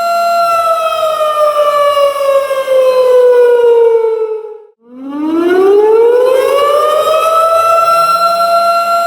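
Tornado warning siren holding a steady wail, then winding down in pitch over about four seconds until it nearly dies out a little before halfway, then winding back up to its full steady pitch.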